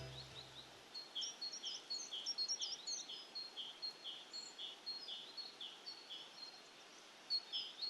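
Faint birdsong: a short chirp repeated about twice a second, with a few quick rising twitters in the first half, as the last piano notes die away at the start.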